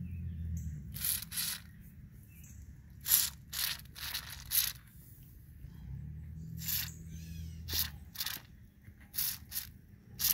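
Short hissing spurts from an aerosol can of fogging oil sprayed through a straw onto the pivot points of a retractable RV step, about a dozen bursts, some in quick pairs or threes.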